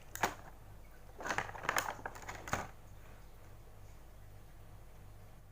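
Small clicks and rustles of plastic toy pieces being handled: one sharp click at the start and a short cluster of clicks about a second and a half in, then only a faint low hum.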